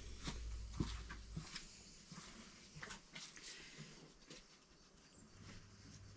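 Faint scattered rustles and light knocks of potting soil being scooped from a wheelbarrow into plant pots.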